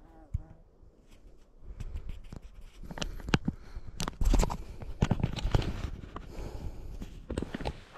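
Close-up rustling and clicking handling noises with low thumps, getting busier and louder about two seconds in, with one heavy thump in the middle.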